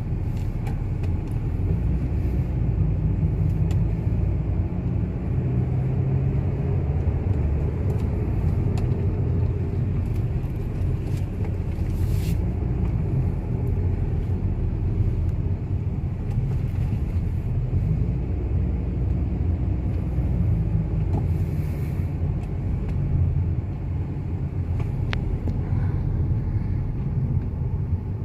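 A car driving, with a steady engine and road rumble.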